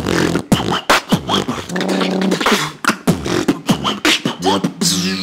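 Vocal beatboxing: quick mouth-made drum hits, kicks and snares, in a steady groove, with a held hummed note about two seconds in.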